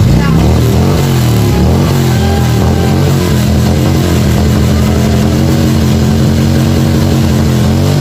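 Harley-Davidson Road Glide's V-twin engine being revved: several quick throttle blips in the first few seconds, then held steady at high revs for about four seconds, dipping briefly near the end.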